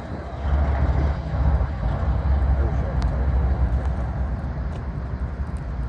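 Low, steady diesel rumble of an approaching Kansas City Southern locomotive.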